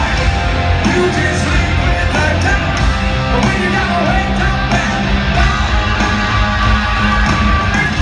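Hard rock band playing live in an arena: electric guitars, drums and a lead singer, loud and steady with the hall's echo.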